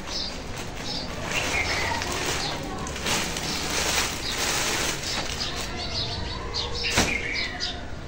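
Plastic shopping bag and clothing packaging rustling as clothes are taken out and unfolded, with a sharp click about seven seconds in. Birds chirp repeatedly in the background.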